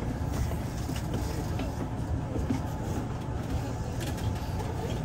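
Interior noise of a Kintetsu 2800 series electric train: a steady low rumble, with passengers' voices faint in the background.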